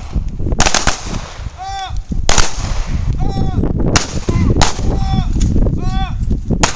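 Pistol shots on a firing line: a quick cluster about half a second in, then single shots a second or two apart.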